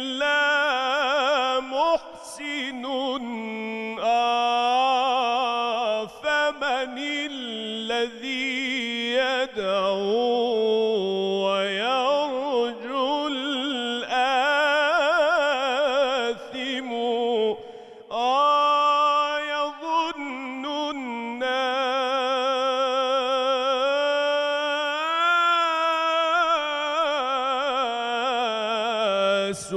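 A solo male voice chants an Islamic ibtihal, a sung supplication to God, unaccompanied, in long melismatic phrases with a quick, wavering ornament on the held notes. It breaks off briefly a few times to take a breath.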